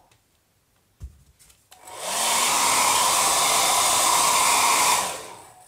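Hair dryer switched on, blowing steadily for about three seconds, then switched off and winding down, drying wet watercolour paint on the paper. A small knock about a second in, before it starts.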